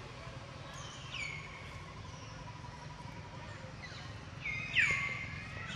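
Baby monkey's short, high-pitched calls that drop sharply in pitch, a few times, the loudest near the end, over a low steady background noise.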